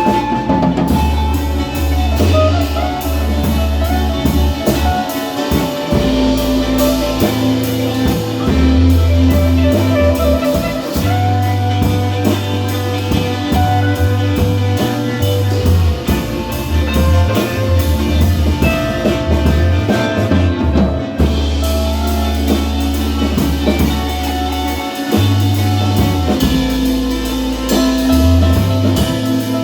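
Instrumental rock music with guitar, a bass line and a drum kit, no singing.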